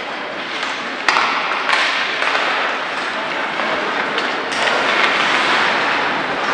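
Ice hockey rink game sound: a steady noisy wash of play and arena background, with one sharp knock about a second in.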